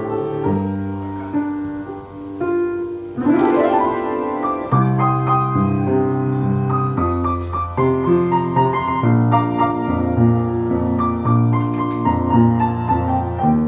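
Piano music: held chords and melody notes, with a quick rising run a little over three seconds in.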